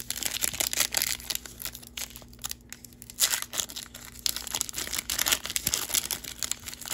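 Crinkly foil wrapper of a Panini Prizm football card pack being peeled and torn open by hand, in irregular crackles throughout.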